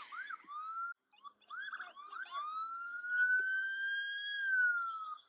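Police car siren heard through body-camera audio: a fast yelp at the start and again briefly about one and a half seconds in, then a long wail that rises slowly, holds, and falls away near the end.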